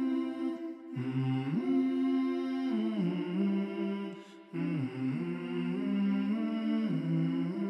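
Background music: a slow hummed melody of long held notes that slide from one pitch to the next.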